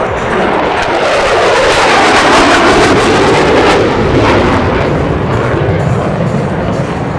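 Jet fighters, plausibly the USAF Thunderbirds' F-16s, passing low overhead in formation. The roar builds to its loudest about two to three seconds in, then drops in pitch and eases away.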